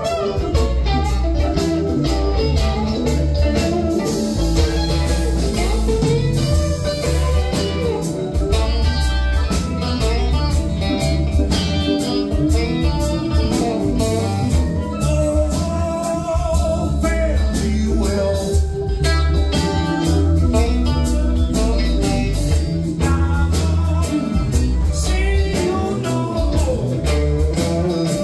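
Live band playing with electric guitars, bass guitar, drums and keyboards, the drums keeping a steady beat under the guitars.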